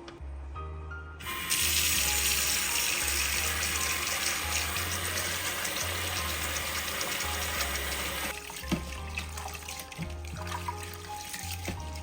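Water tap running full into a sink, turned on about a second in and shut off after about seven seconds, then a fainter trickle with a few light clicks. Background music plays throughout.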